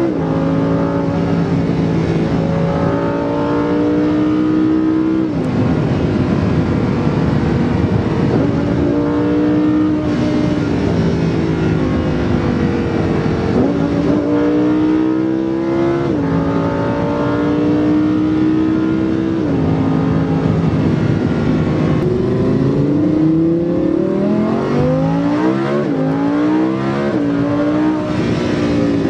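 Lamborghini Huracán's V10 engine heard from inside the cabin at high autobahn speed, holding a steady pitch with brief dips every few seconds, over tyre and wind noise. Near the end the pitch falls and then climbs in several rising sweeps.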